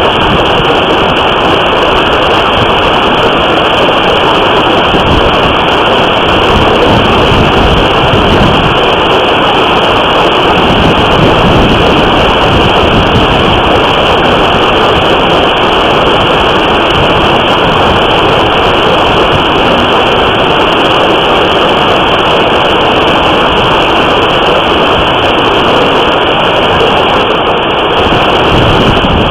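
Hail and heavy rain pounding down during a severe storm: a loud, dense, steady noise with no separate hits standing out, picked up by a surveillance camera's microphone.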